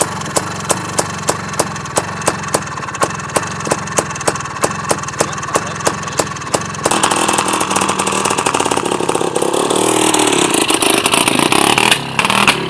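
IZh Planeta 5's single-cylinder two-stroke engine sputtering with sharp pops about three times a second. About seven seconds in it is revved and runs louder, its pitch rising and falling. The popping and sneezing are a misfire, which the owner traced to a loosely fitted high-voltage spark plug lead that falters when wet.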